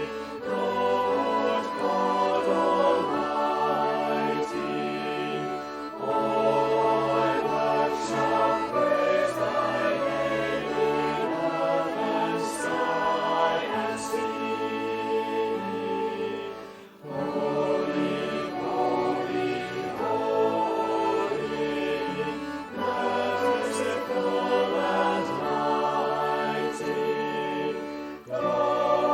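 Choir singing with instrumental accompaniment in long held phrases, with a brief break about halfway through.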